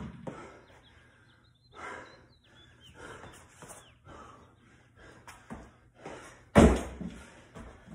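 Hard, gasping breaths of an athlete between burpees, with one loud thud about two-thirds of the way in as a jump over a 24-inch wooden plyo box lands.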